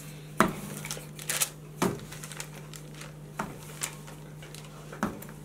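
Wooden rolling pin rolling out a puff pastry sheet on butter paper over a rolling board: about six scattered short knocks and crinkles of the paper as the pin is moved and repositioned.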